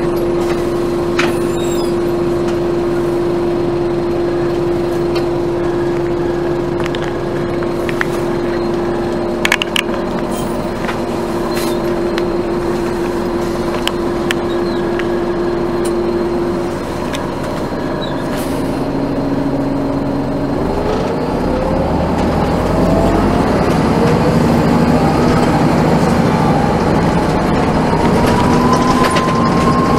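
1996 NovaBUS RTS transit bus heard from on board, its Detroit Diesel Series 50 engine idling with a steady hum for about sixteen seconds, with a few light rattles and clicks. Then the bus pulls away: the engine and Allison automatic transmission give a whine that rises in pitch and grows louder as it speeds up.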